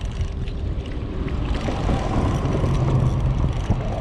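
Steady low rumble of wind on the microphone, with a low motor hum coming in about two and a half seconds in.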